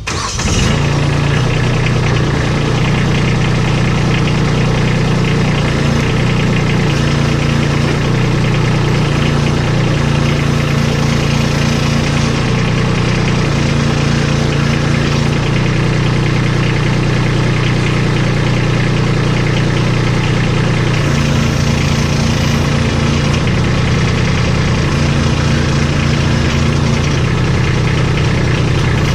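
Kubota compact tractor's diesel engine running steadily, its note shifting a few times while the hydraulics swing the front snow plow blade from side to side.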